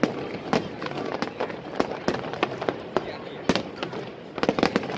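Aerial fireworks display: shells bursting overhead in a string of sharp, irregularly spaced bangs, the loudest about three and a half seconds in and a quick cluster of bangs near the end.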